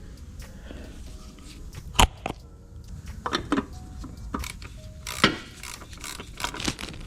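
Hand tools and metal parts clinking and knocking during an oil change, with two sharper knocks about two and five seconds in.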